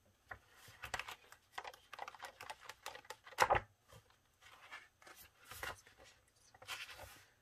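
Patterned scrapbook paper rustling as a paper pad is handled and a sheet is pulled out: a run of short crinkles and swishes, the loudest about three and a half seconds in.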